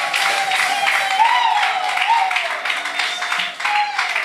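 Congregation applauding and cheering, with a long held note that wavers in pitch over the clapping.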